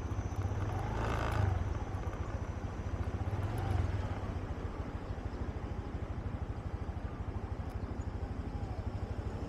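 Honda Beat scooter's small single-cylinder four-stroke engine running at low speed under the rider, with a steady fast firing pulse. The revs rise and fall briefly about a second in and again near four seconds.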